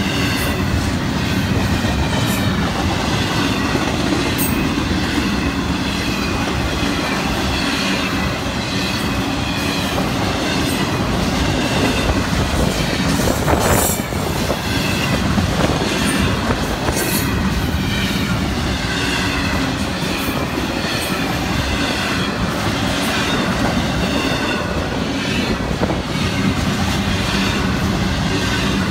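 Double-stack container freight cars rolling past: a steady rumble of steel wheels on the rails with scattered clicks and clanks, and a wavering high-pitched wheel squeal. The sharpest clank comes about halfway through.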